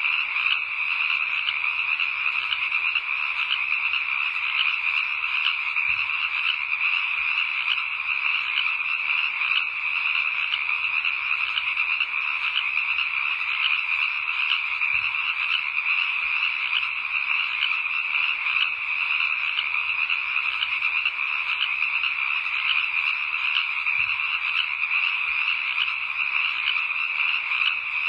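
A steady, unbroken night chorus of many frogs croaking, thick with fast overlapping calls.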